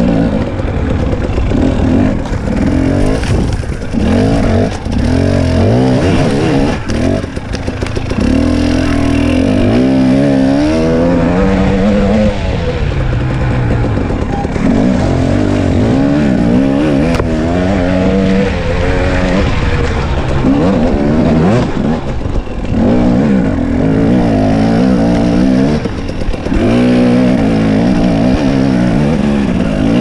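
Husqvarna TX 300 two-stroke enduro dirt bike engine under a rider's throttle on a trail, its revs rising and falling over and over as the rider opens and closes the throttle.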